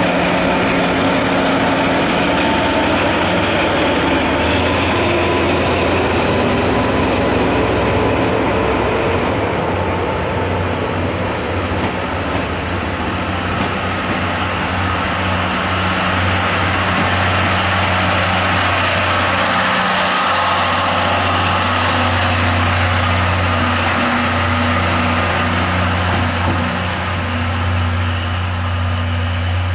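DE10 diesel-hydraulic locomotive pulling out under power, its diesel engine running with a steady low drone, while the passenger coaches it hauls roll past on the rails. The engine note dips briefly a little after the middle, then comes back.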